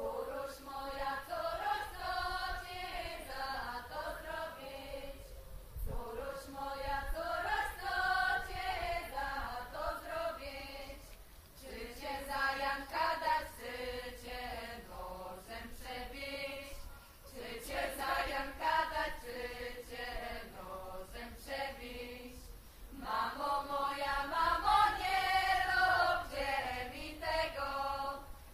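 Unaccompanied women's vocal ensemble singing a traditional folk song in harmony. It comes in phrases of a few seconds with short breaks between them, loudest near the end.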